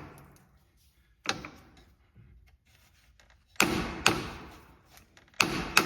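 Hammer strikes, about five in three groups, each a sharp hit with a short ringing decay: tapping the STI steering rack bushing to pop it the rest of the way through its bore.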